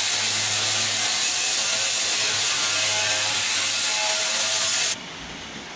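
Handheld grinder grinding the top edge of a steel ice-block can, a steady loud grind over a low motor hum that cuts off abruptly about five seconds in.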